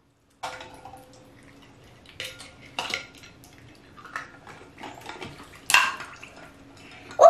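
Small toy cars clinking against glass bowls as they are dipped and moved about in water, with several sharp, irregular clinks, the loudest about six seconds in.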